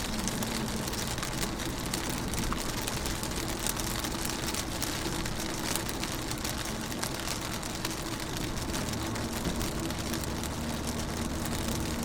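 Rain falling on a car window heard from inside a moving car: a steady wash of rain with many small drop ticks over a constant low hum of the car on the road.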